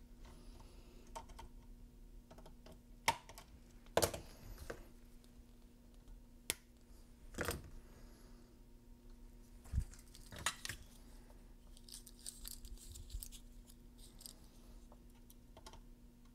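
Small hand tools and component leads handled on a speaker crossover board: scattered sharp clicks of needle-nose pliers and wire, then a light crinkling rustle starting about twelve seconds in, over a faint steady hum.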